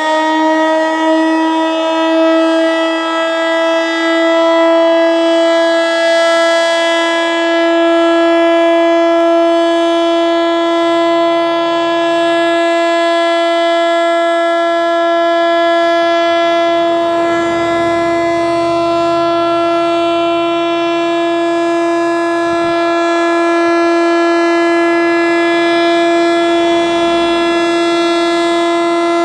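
ASC T-121 AC/DC outdoor warning siren sounding a steady alert tone, rising slightly in pitch over the first few seconds and then holding level. The owner suspects the siren is underpowered, not getting enough voltage.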